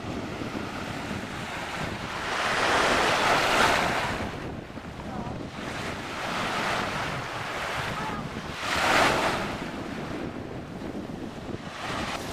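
Small waves breaking on a sandy beach, the surf swelling and easing three times, with wind buffeting the microphone throughout.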